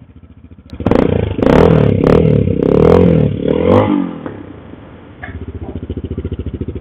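AKT TTDS 200 motorcycle's single-cylinder engine through an aftermarket Akrapovic-style exhaust tip: idling, then revved in several throttle blips for about three seconds before settling back to idle. The exhaust note is a deep one, more like an enduro bike than a thin, high-pitched slip-on.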